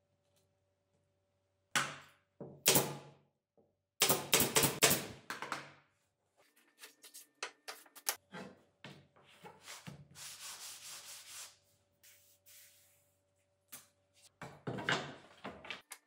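Wooden strips sliding, rubbing and knocking against the metal top of a table saw as they are handled. Blue painter's tape is pulled off its roll and laid along a strip.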